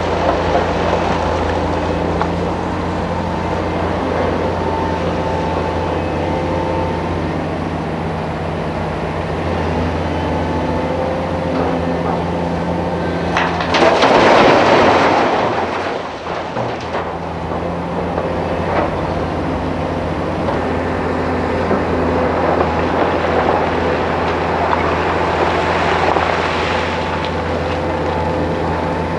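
Hitachi 350 excavator's diesel engine running with a steady low drone. About halfway through, a load of broken rock pours from the bucket into the steel dump-truck body with a loud rushing clatter lasting a few seconds, and a smaller rush of rock comes near the end.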